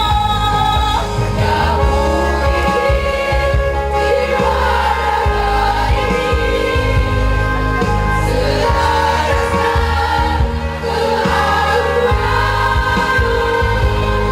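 Community choir singing in harmony with long held notes over a steady low instrumental accompaniment.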